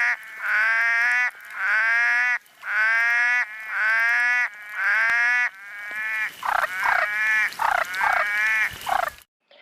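Red-eyed tree frog calling: six long, even calls, each rising a little in pitch, then a faster run of short calls in the second half.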